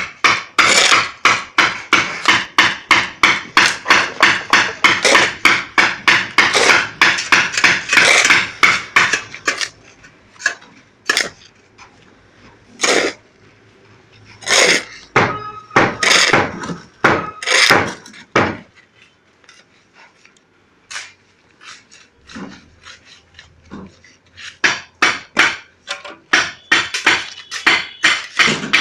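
Hand tools striking a sand-and-cement floor mix as it is tamped down, in quick repeated blows of about three a second. The blows stop about ten seconds in, come only now and then for a while, then pick up again quickly near the end.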